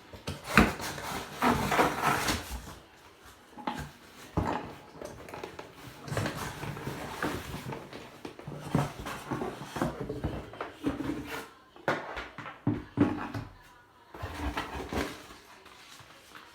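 Rustling and knocking from handling the packaging and parts of an Oster blender: a string of irregular rustles, clatters and light knocks, with no motor running.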